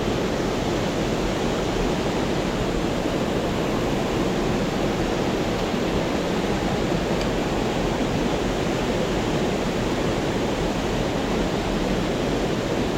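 Steady rushing of a mountain stream's water pouring over a small waterfall, an even unbroken wash of noise.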